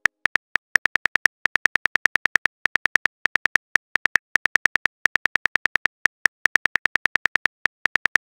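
Simulated phone-keyboard typing clicks from a texting app: a rapid run of short, light taps, one per letter, with brief gaps between bursts.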